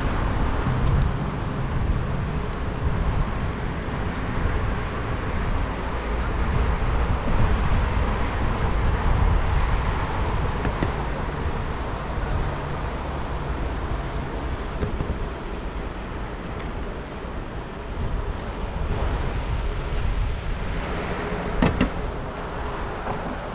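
Wind rushing over the microphone of a camera on a moving bicycle, over steady city road traffic from the boulevard beside the bike path. A sharp click with a short tone comes near the end.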